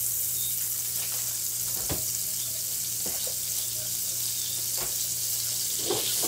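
A block of butter sizzling as it melts in a hot frying pan: a steady hiss, over a steady low hum, with a few light knocks.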